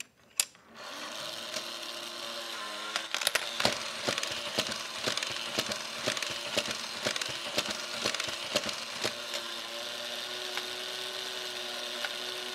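A coin clicks onto the tray of a Robie coin-bank robot toy, then the toy's small motor and plastic gears run with a steady whir and irregular ratcheting clicks as its mechanism works its eyes and mouth to take the coin.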